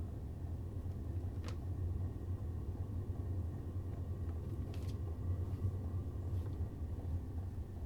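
Sunster diesel air heater starting up: a steady low hum from its running blower and motor, with two faint clicks about a second and a half and five seconds in.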